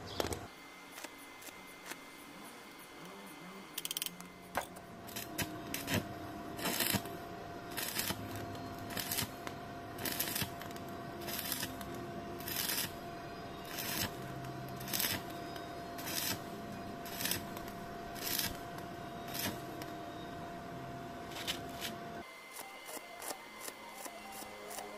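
Rhythmic rasping strokes of a hand tool working metal, about one a second, with a steady thin tone underneath. Both start a few seconds in and stop shortly before the end.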